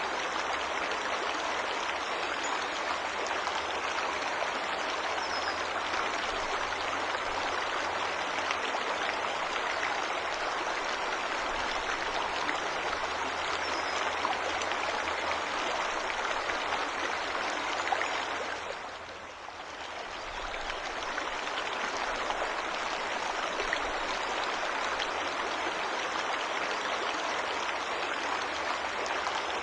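Waterfall rushing in a steady, even wash of falling water. It fades briefly about two-thirds of the way through, then returns to full strength.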